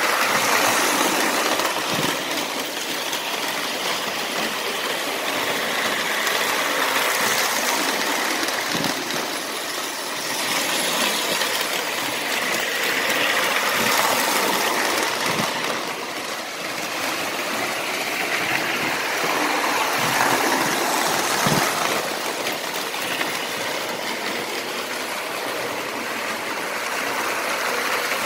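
Two Lionel O-gauge electric toy trains, a prewar 264E and a postwar 221 with passenger cars, running on tubular three-rail steel track. Their wheels and motors make a steady rumbling whir that swells and eases as they come past, with a few sharp clicks over the rail joints and switches.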